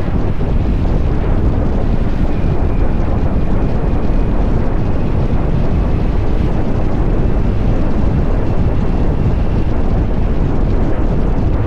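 Kawasaki Z900 SE's inline-four engine, heard through an SC-Project CR-T exhaust while the bike is under way, largely buried under steady wind rushing over the microphone. A faint thin whine slowly rises in pitch from about two seconds in.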